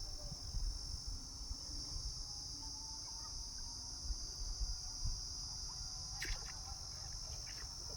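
Steady high-pitched insect chorus, crickets or cicadas, with a low rumble underneath and a few faint clicks about six to seven seconds in.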